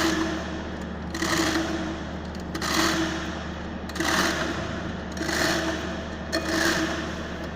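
Hand-operated chain hoist being hauled to lift a lathe, its chain and ratchet clattering in a repeated stroke about every second and a half, six strokes in all, over a steady low hum.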